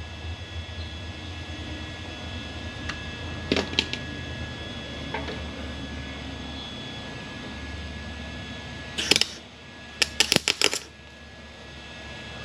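Wire-feed (MIG) welder crackling in short trigger bursts as pinholes in a rusted steel fender well are filled: one burst about nine seconds in, then a quick string of pulses about a second later. A couple of sharp clicks a few seconds in, over a steady low hum.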